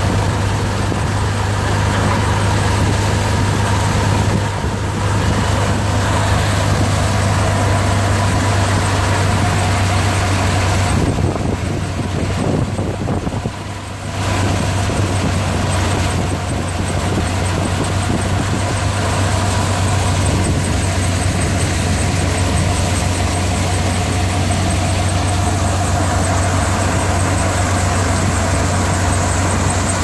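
Soybean thresher and the tractor driving it, running steadily while dry soybean plants are fed in: a loud low drone with a few steady tones above it, easing briefly about eleven to fourteen seconds in.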